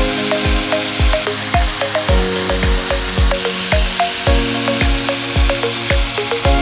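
Background music with a steady beat and held chords, over ground beef and onions sizzling in a cast iron skillet.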